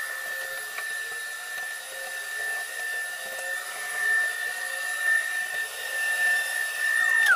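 An electric motor whining at a steady high pitch, then winding down, its pitch falling quickly as it is switched off at the very end.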